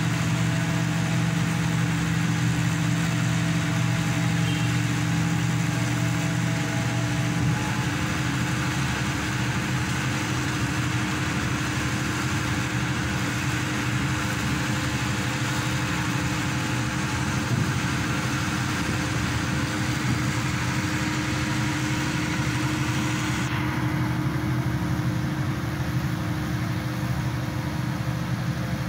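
Hydraulic static pile driver's engine and hydraulic power pack running steadily with an even drone. The lowest hum eases about seven seconds in.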